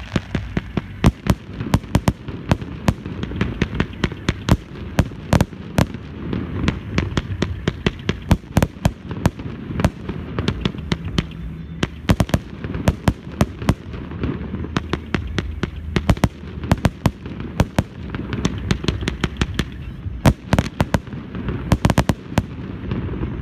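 Fireworks display: aerial shells launching and bursting in quick, irregular sharp bangs, several a second, over a steady low rumble.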